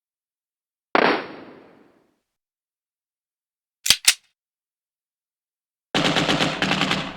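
Gunshot sound effects. A single shot with a fading tail about a second in, two short sharp cracks in quick succession around the middle, then a rapid burst of automatic fire lasting about a second near the end.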